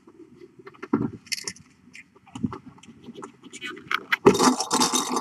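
Scraping and scratching from cats and kittens moving about on a blanket, with scattered small clicks and rustles. A denser, louder run of scraping comes in about four seconds in.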